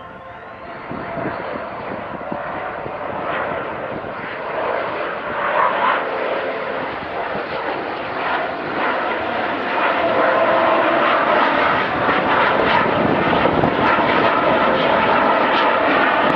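The single jet engine of an F-16 Fighting Falcon flying past, its noise building louder over about the first ten seconds and then staying loud.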